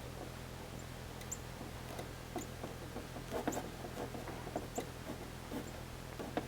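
Irregular small squeaks and ticks as a paintless dent repair rod's waxed soft tip pushes and rubs against the back of a car's sheet-metal quarter panel, thickest about three and a half seconds in, over a steady low hum.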